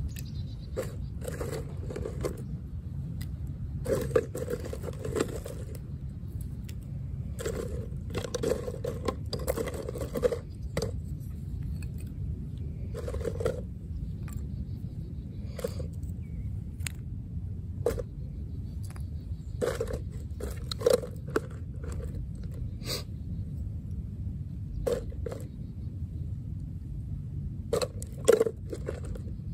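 Small sticks of split kindling wood being set down and knocking against each other on stone pavers: a scattered series of light wooden knocks and clatters, some in quick clusters. Under it runs a steady rumble of wind on the microphone.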